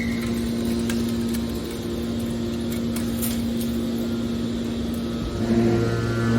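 Hydraulic scrap-metal baler's motor and pump running with a steady hum; about five seconds in a deeper hum joins and it gets louder.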